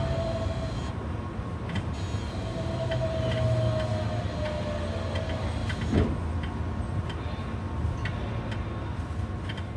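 Onboard running sound of a Keihan 7200 series electric train slowing into Kuzuha: a thin whine from the traction motors that falls slowly in pitch, over the rumble of the wheels on the rails, with scattered clicks. About six seconds in there is a brief, sharp rise-and-fall in pitch, the loudest moment.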